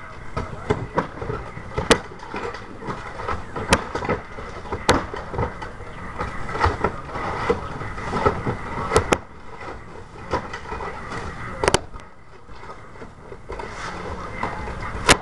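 Old roof shingles being scraped and pried off the roof deck with a long-handled tool: ongoing scraping and tearing with irregular sharp clacks and knocks. Busiest in the first ten seconds, sparser after.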